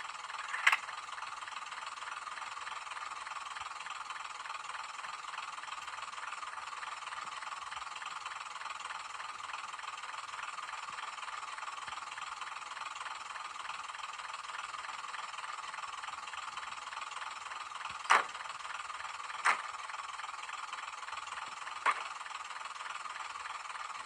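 Graham Farish Class 101 N gauge model's onboard sound decoder playing through its tiny speaker: a steady, thin running sound with no bass, broken by sharp slam-like clicks, one at the start and three close together near the end, which fit the passenger-door sound effect.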